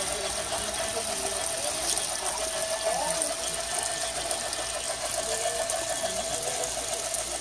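Lionel Snoopy G-gauge toy train running steadily along its track, its motor and gears giving a constant whirring hum with a fine rapid pulse.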